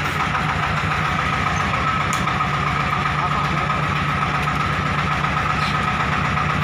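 Diesel engine of a homemade ledok dump truck idling steadily, with a quick, even chug.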